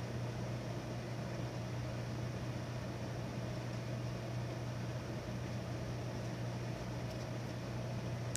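Steady low machine hum over an even hiss, unchanging throughout, with a couple of faint ticks near the end.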